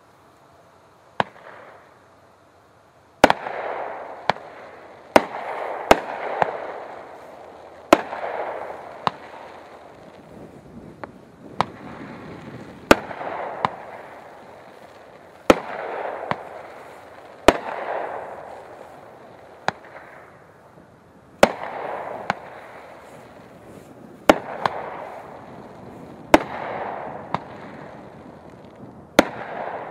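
A 20-shot 500-gram consumer firework cake (Firehawk Heart Attack) firing: sharp shots every one to two seconds, most followed by about a second of fading hiss as each effect bursts overhead.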